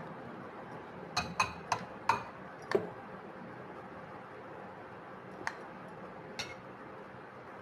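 Metal spoon clinking against glass while syrup is spooned from a glass bowl into glass tumblers: five light clinks about a second in, then two fainter ones later.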